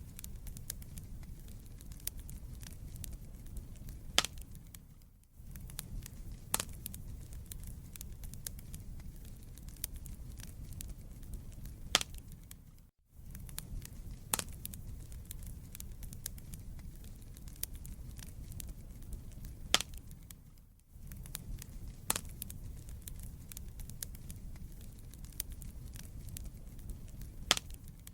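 Wood fire burning in a fireplace: a steady low rumble of flames with scattered sharp crackles and pops from the burning logs. The sound dips briefly to near silence about every eight seconds.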